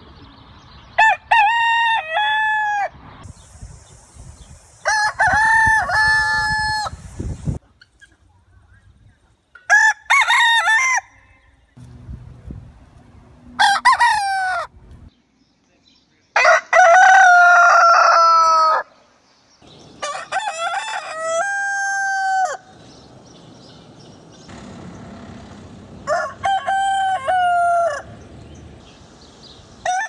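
Roosters crowing: about seven long cock-a-doodle-doo crows a few seconds apart, from several different roosters in turn.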